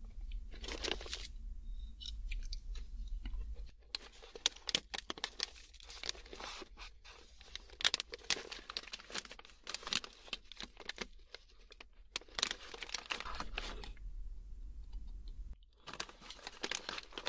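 Close-miked handling of a bag of shell-on macadamia nuts: packaging crinkling and hard shells clicking against each other in dense rapid clusters from about four seconds in, with a short pause near the end.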